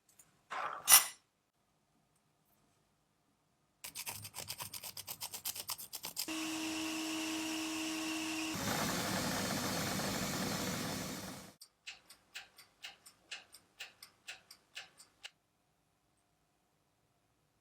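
Repeated scraping strokes, as of filing or sanding a workpiece by hand, in short separate bursts. First come quick strokes, then a few seconds of steady rasping noise with a faint tone, then slower single strokes.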